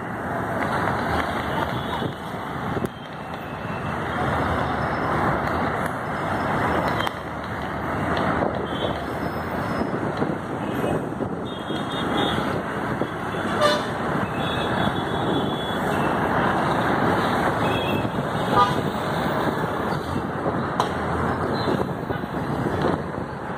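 Busy city road traffic: buses, auto-rickshaws and cars running in a steady din, with short horn toots now and then.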